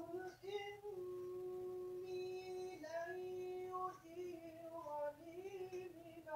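A young girl's voice singing softly, a slow tune of long held notes.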